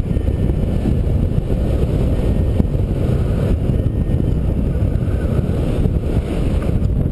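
Wind rushing over the microphone in paraglider flight: a steady low rumble from the airflow.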